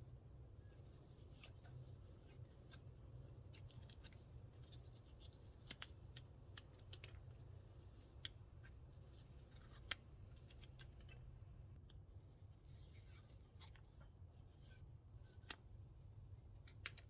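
Near silence: a low steady hum with faint scattered clicks and short scratchy sounds.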